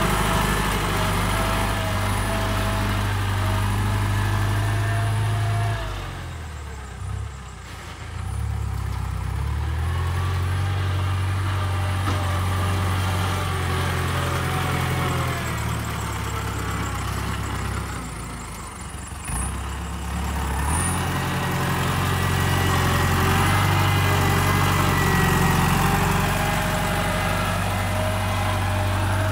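New Holland TS90 tractor's diesel engine working under load as it pushes hard soil with its front blade. The engine note sags twice, about six and about eighteen seconds in, each time dropping lower and quieter as the engine lugs in the tough, sticky ground, then picks back up.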